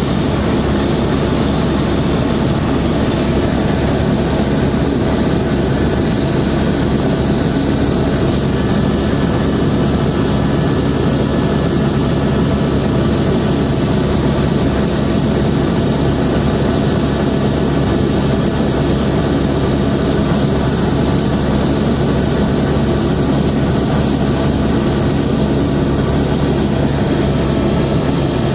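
Helicopter in flight: a steady, loud drone of turbine engine and rotor with a constant pitch and level throughout.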